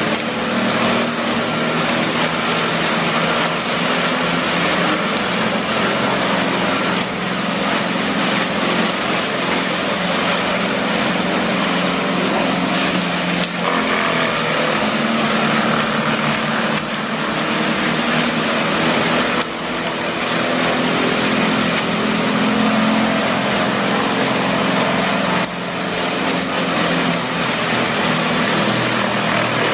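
Wood chipper running with its engine drone under a continuous grinding, shredding noise of wood being chipped; the sound dips abruptly a few times.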